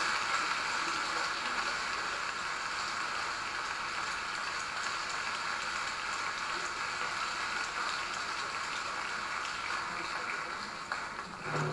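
Audience applause, loudest at first and easing to a steady clapping, dying away near the end; heard through a television's speaker.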